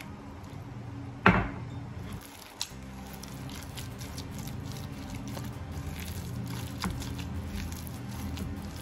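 Silicone spatula stirring and folding a wet banana blossom batter in a bowl: soft squelching with frequent small clicks and taps. One sharp knock about a second in.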